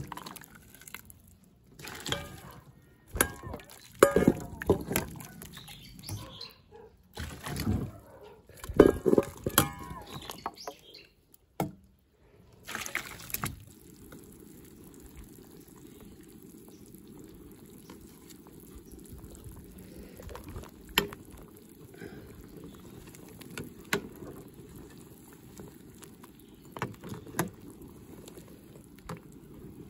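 Water splashing and pouring, with knocks and clatter against a large metal pot as pork backbones and kalopanax branches are handled, for about the first half. It is followed by a steady low rumble of the pot coming to a boil, with a few faint clicks.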